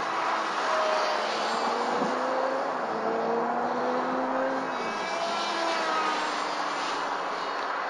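Electric R/C airplane's brushless motor and 5x4.5 Gunther propeller whining in flight overhead. The pitch climbs slowly through the first half, then slides down after about four and a half seconds, over a steady hiss.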